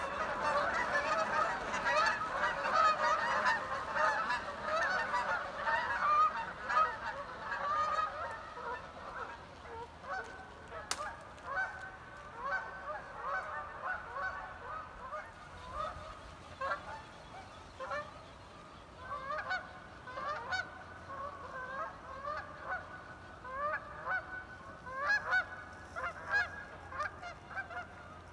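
A flock of geese honking, many calls overlapping at first, then thinning to separate honks.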